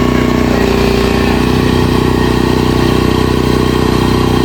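Engine running steadily at an even speed.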